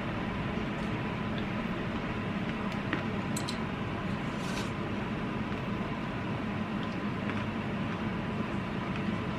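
Steady indoor background noise, a low hum and hiss like a running fan or appliance, with a few faint soft clicks partway through.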